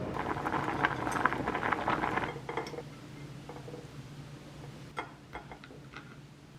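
Kitchenware clinking: a quick run of small taps and clinks of utensils against dishes for about two and a half seconds, then a few single taps near the end.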